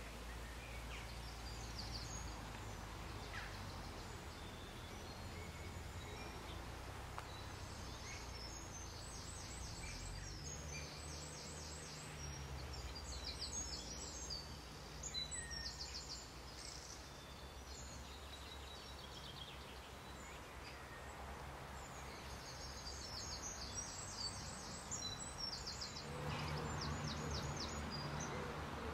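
Small songbirds singing in quick runs of high, rapidly repeated notes, in two spells, over a steady low outdoor rumble.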